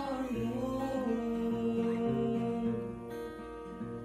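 Acoustic guitar played with chords changing, under a man's singing voice holding one long note.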